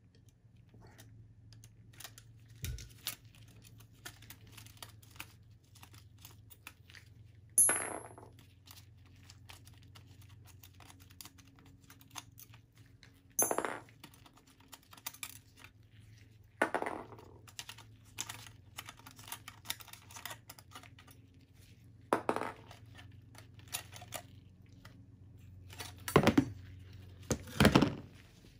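Needle-nose pliers clicking and scraping against a video card's metal I/O bracket and its connector screws as the bracket is worked loose, with several louder knocks and clinks of metal parts being handled, two close together near the end.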